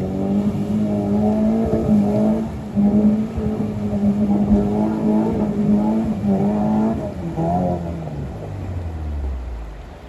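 Maruti Suzuki Gypsy's engine running under throttle at a steady pitch. About seven seconds in, the pitch falls away as it eases off, and it is quieter near the end.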